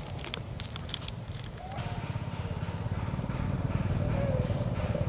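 A few faint crunching clicks in the first second as a long-tailed macaque chews apple, over a low steady rumble that grows louder after about two seconds.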